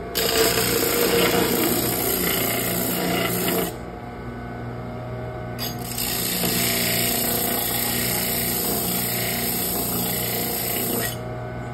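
Bench disc sander motor running with a steady hum while a metal bracket is ground against the abrasive disc in two passes to knock off burrs: a loud grinding hiss for the first few seconds, a short easing off, then a second long pass that stops about a second before the end.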